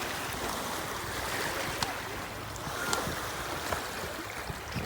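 Small waves washing in on a beach, a steady wash with a few brief sharp clicks.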